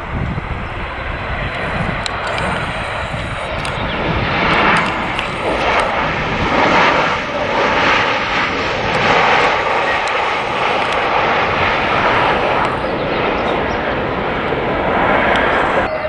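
Narrowbody jet airliner's engines heard close by as it passes, a steady rushing noise that swells through the middle seconds and eases again, with a faint high whine early on. The sound cuts off abruptly at the very end.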